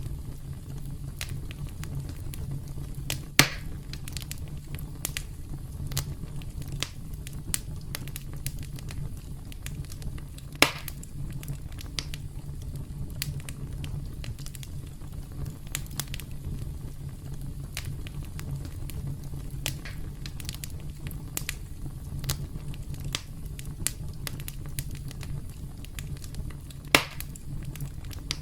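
Campfire crackling: a steady low rumble of burning wood with many small crackles, and three louder pops spread through it.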